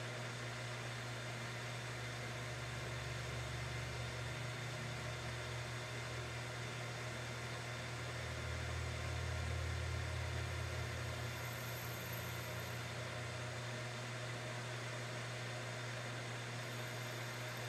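Manual lathe running with a steady motor and spindle hum while the tool turns a half-inch aluminium part. The low part of the hum swells slightly twice, around three seconds in and again around nine to ten seconds.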